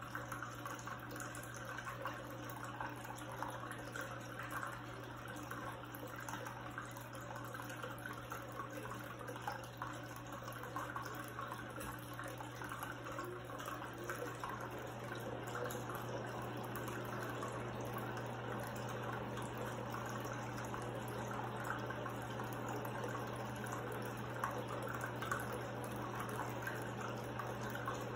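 Small tabletop faux-rock cascade fountain: water trickling and splashing steadily down its tiers into the basin, with a steady low hum underneath.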